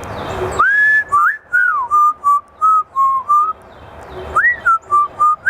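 African grey parrot whistling a short tune: a rising note that is held, then a string of short notes. After a pause of about a second the phrase starts again.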